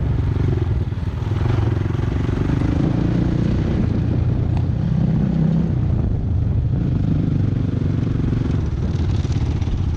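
Trail motorcycle engine, a 250 cc single-cylinder four-stroke, running continuously while riding, its pitch rising and falling with the throttle.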